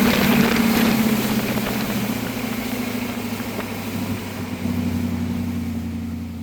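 Motorboat engine running steadily at low speed, with water and wind noise that ease off; the sound fades out near the end.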